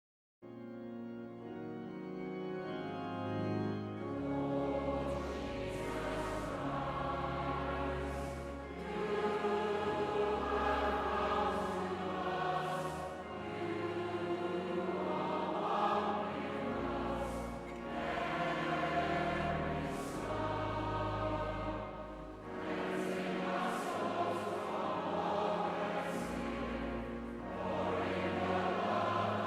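A choir sings a hymn over low, sustained accompaniment chords. It starts abruptly about half a second in, out of dead silence.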